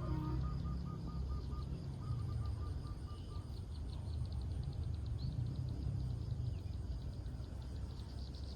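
Morning garden ambience: a small bird gives a rapid trill twice in the first half, and fast high-pitched insect or bird chirping comes in the middle and again near the end, over a steady low rumble.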